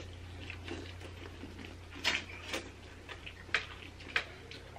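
Close-up eating sounds of corn on the cob being bitten and chewed: several sharp, wet clicks at irregular intervals, over a steady low hum.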